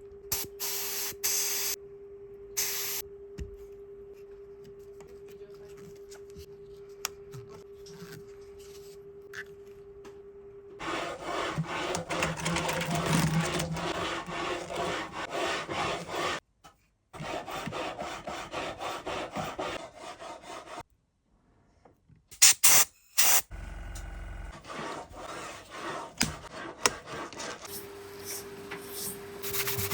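Hand-tool rubbing and filing strokes on the wooden neck of a Fender guitar, in several stretches broken by short silences. A steady faint hum sits under the quieter first third and returns near the end.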